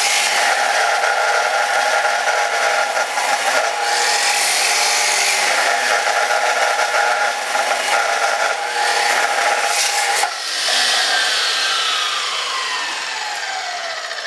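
Abrasive cutoff chop saw grinding through quarter-inch-wall square steel tubing, loud and steady. The heat hardens the steel and makes the saw struggle late in the cut, as the owner says. About ten seconds in the cut ends and the motor winds down with a falling whine.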